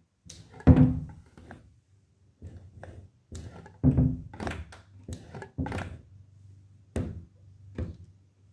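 A door being pulled against a wedge alarm door stopper: a run of irregular knocks and thuds as the door jams against the wedge, the loudest about a second in and again about four seconds in.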